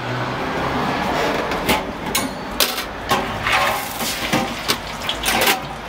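Clatter of snack-stall kitchen work at the deep fryers: a string of sharp knocks and clicks from the handling of a paper plate and a plastic fry scoop, over steady background noise.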